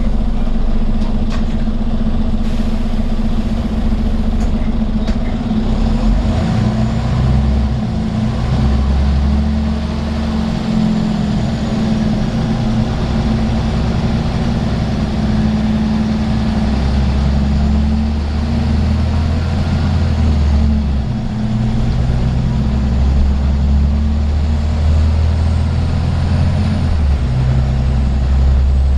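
A Scania N94UB bus's nine-litre five-cylinder diesel engine drones, heard from inside the passenger saloon as the bus drives along. Its low note steps down and picks up again several times as the bus changes speed. Road and tyre noise run beneath it.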